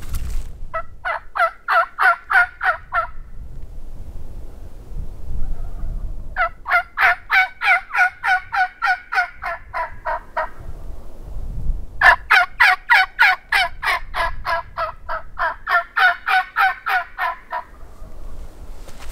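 Wild turkey yelping: three long runs of fast, sharp, evenly spaced yelps at about five notes a second. The second run comes about six seconds in and the third about twelve seconds in, each longer than the first.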